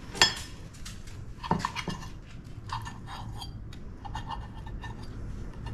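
Fork and knife clinking and scraping against a plate while cutting a waffle, with a sharp clink just after the start and a few more about a second and a half in.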